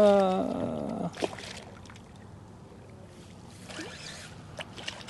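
A man's drawn-out exclamation at the start, then a hooked sheepshead splashing at the water's surface beside the boat in short bursts.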